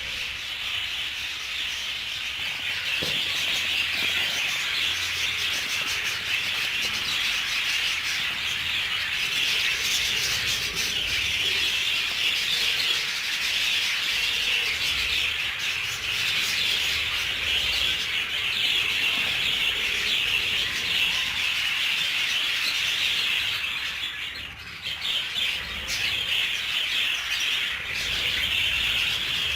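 A flock of budgerigars chattering and chirping continuously, a dense high warble with a brief lull about five-sixths of the way through.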